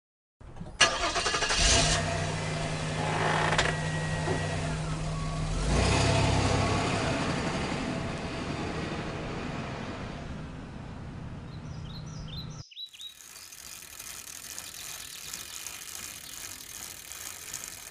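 A motor vehicle engine starting and running, louder about six seconds in, then fading. After a sudden cut, quieter outdoor street ambience.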